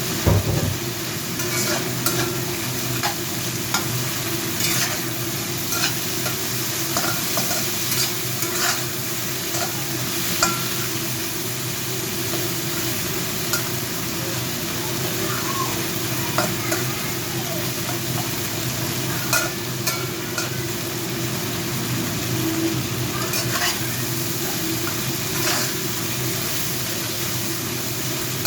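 Chicken legs frying and sizzling in hot oil in a pan, with a cooking utensil now and then scraping and clicking against the pan as they are stirred.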